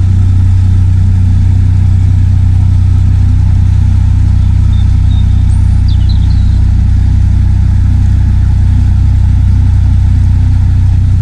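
A narrowboat's diesel engine running at steady cruising speed: a loud, unbroken low drone, heard from the stern where the noise comes up through the deck boards.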